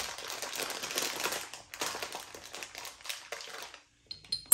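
Crinkling and rustling of a packet of carbonation drops (fizz drops) being opened and handled, then near the end a drop falls into an empty glass beer bottle with a couple of short ringing clinks.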